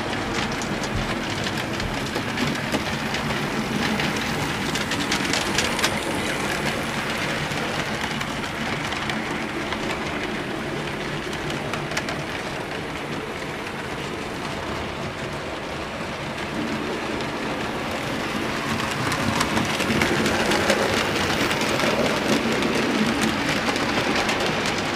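Model railway trains running over the layout's track: a steady rolling noise with rapid small clicks of wheels over rail joints. It grows louder near the end as a coach passes close by. The rolling stock is running smoothly, with no uncoupling or derailing.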